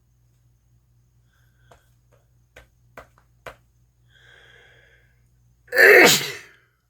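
A person sneezing: a breathy build-up about four seconds in, then one loud sneeze near the end, its voice falling in pitch. A few faint clicks come before it.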